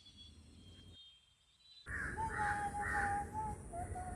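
Repeated animal calls, pulsing about two to three times a second over a wavering held tone and a low outdoor rumble, starting about two seconds in.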